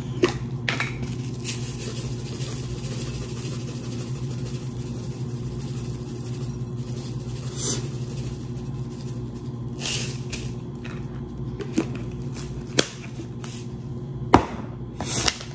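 Seasoned panko breadcrumbs shaken and poured from a canister into a glass mixing bowl of ground beef, with a few taps and knocks and the canister set down on the table near the end. A steady low hum runs underneath.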